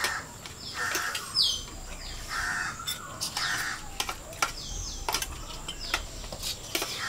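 A bird giving harsh cawing calls, four in quick succession over the first few seconds, with scattered light clicks like cutlery on plates.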